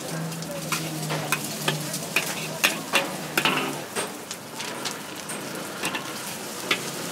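Noodles sizzling in a large steel wok as a metal spatula stirs and tosses them, with frequent sharp clinks and scrapes of the spatula against the wok.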